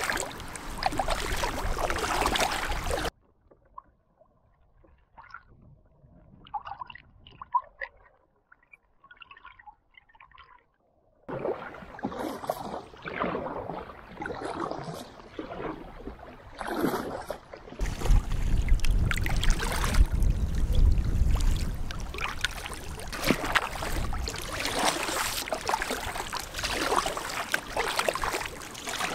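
Kayak paddle strokes splashing and dripping in river water, with wind buffeting the microphone. About three seconds in it drops to a quiet stretch of faint drips, then the water noise returns, and from around the middle the wind rumble grows louder.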